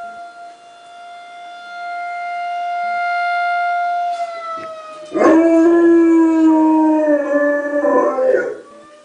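A tornado warning siren sounds a steady wailing tone that swells louder, then slides down in pitch about four seconds in. About five seconds in, a dog howls loudly along with it for about three seconds, its howl wavering and sinking slightly. Near the end the siren's pitch rises again.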